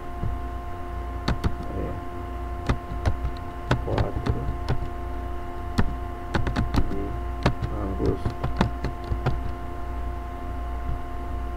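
Typing on a computer keyboard: a string of irregular keystroke clicks, bunched between about one and nine seconds in, over a steady hum with two constant tones.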